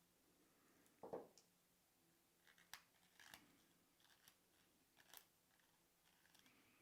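Faint, scattered clicks of small metal derailleur parts being handled and fitted together, with a soft handling thump about a second in.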